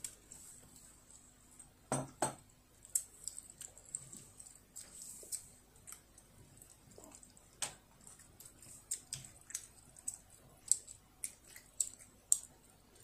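Wooden chopsticks clicking and tapping on a plate as a child picks up food and eats, with soft chewing sounds between the taps. The clicks come irregularly, with a quick run of sharp ticks near the end.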